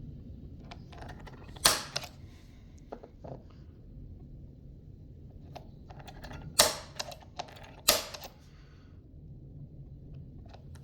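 Hand work on an excavator's cab window frame: scattered small clicks and taps, with three louder sharp knocks about two, six and a half, and eight seconds in.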